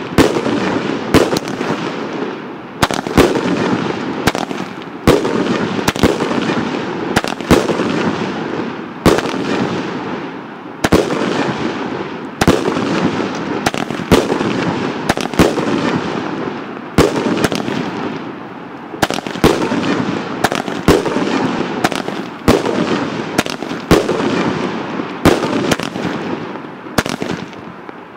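A 25-shot 1.3G Thunder King repeater cake firing: shells launch one after another, rise on glowing tails and burst with sharp loud bangs, about one every second. A rushing noise fills the gaps between the bangs.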